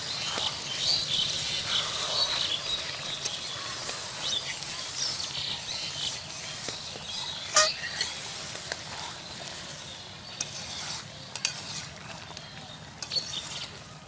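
Chicken curry simmering with a steady sizzling hiss in a large metal wok, stirred with a metal spatula that gives a few sharp clinks and scrapes against the pan in the second half.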